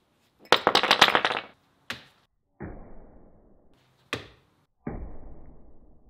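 A short clatter of metal pieces, then homemade throwing spikes (drill bits set in brass bullet casings) thrown into a foam archery target: twice, a sharp click followed a moment later by a dull thud as a spike strikes the target.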